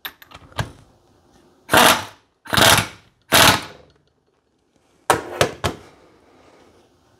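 AirCat 1150 pneumatic impact wrench hammering in three short bursts, torquing the pulley nut down onto an alternator shaft. A few clicks and knocks near the start and about five seconds in, as the tool is handled.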